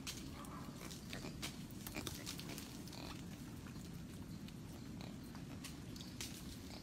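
Brown lemurs grunting softly, with scattered clicks and rustles from the animals climbing on the tree trunk.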